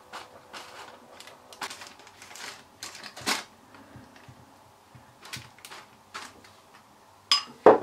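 Baking parchment paper rustling and crinkling as a hand handles it around the dough: irregular soft rustles and clicks, with a sharper one about three seconds in and another just before the end.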